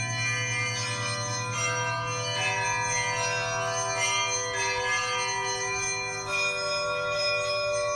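Several church bells of different sizes ringing together: higher bells struck every second or so, their tones overlapping and ringing on over the steady low hum of a large bell.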